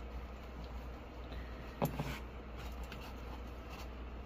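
Faint handling noises of camping tools and a nylon sheath being worked: light clicks and rustles, with one brief louder scrape or creak about two seconds in, over a steady low hum.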